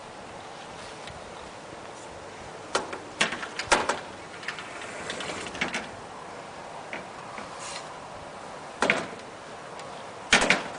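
Knocks and rattles from a sliding glass door frame as a baby grabs it and pulls himself up: a cluster of sharp knocks about three seconds in, another about nine seconds in, and a loud pair near the end.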